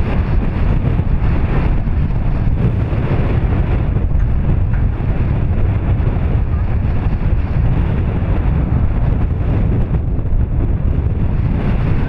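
Wind buffeting the camera's microphone: a steady, loud low rumble.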